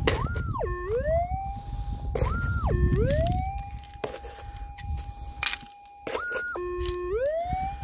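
A gold-prospecting metal detector's audio: a steady threshold tone broken three times by a target signal, a tone that jumps up, drops low and glides back up, as a scoop of soil holding a gold nugget passes over the coil. Gravelly soil scrapes and crunches in a plastic scoop during the first few seconds.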